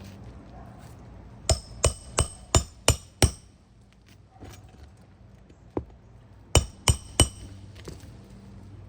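Hammer blows ringing on metal, driving roofing nails through a roof snake to re-nail an asphalt shingle: a run of six strikes, a lone strike, then three more in quick succession.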